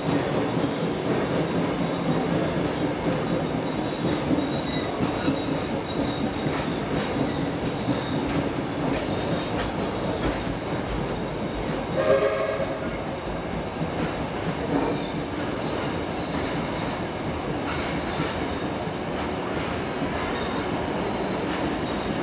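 Train of red heritage passenger carriages rolling past, a steady rumble of wheels on rails with a thin high squeal at times, and a brief louder tone about halfway through.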